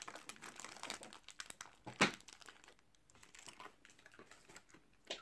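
Plastic snack wrappers crinkling as they are handled, with one sharp crackle about two seconds in, then only a few light ticks.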